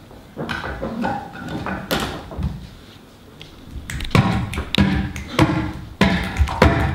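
Live hand percussion by three performers: claps, slaps and taps. It starts as a few scattered hits, then from about four seconds in becomes a fast, dense rhythm of sharp hits.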